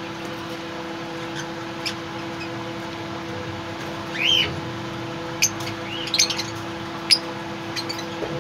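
Lovebirds giving scattered sharp chirps and short squawks, the loudest a swooping call about four seconds in, over a steady low hum.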